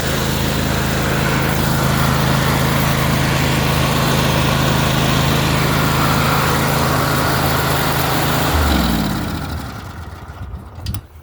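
Kohler Courage 25 engine on a riding mower running steadily, now fed by a replacement fuel pump. About two-thirds of the way through it is shut off, and its pitch falls as it coasts to a stop.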